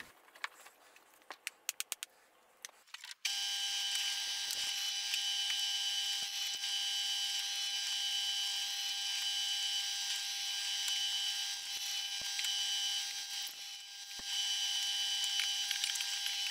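A few faint taps of handling, then a bench pillar drill's motor running steadily with a constant whine, cutting in suddenly about three seconds in and dipping briefly near the end.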